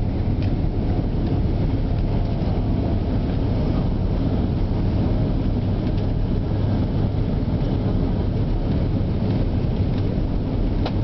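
Steady low rumble of an Airbus A330-300 heard inside the passenger cabin as the airliner rolls on the ground just after landing.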